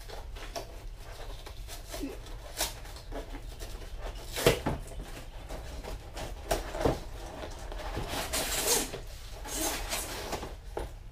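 Large cardboard shipping box being opened and handled: cardboard flaps and panels rubbing and sliding against each other, with a few knocks, the loudest about four and a half seconds in.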